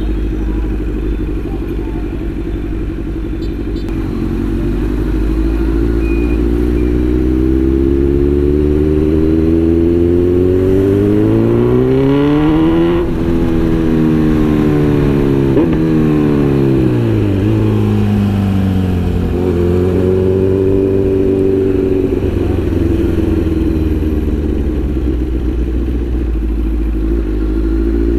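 Kawasaki Z900's inline-four engine while riding: its pitch climbs steadily for several seconds as the bike accelerates, then drops as the throttle is eased off, and after that it holds a steady cruise with small dips and rises in pitch.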